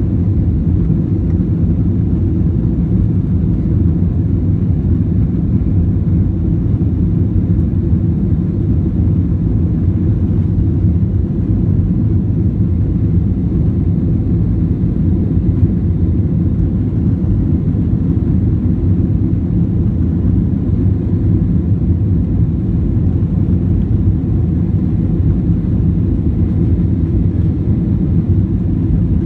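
Steady low rumble inside the cabin of an Airbus A321-231 climbing shortly after takeoff: its IAE V2500 engines and the airflow past the fuselage, unchanging throughout.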